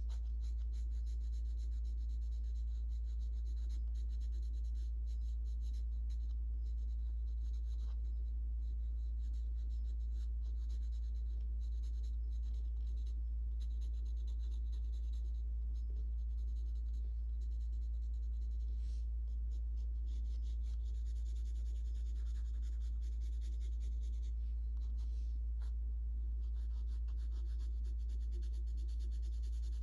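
Graphite pencil scratching on sketchbook paper in many short, irregular shading strokes, over a steady low hum.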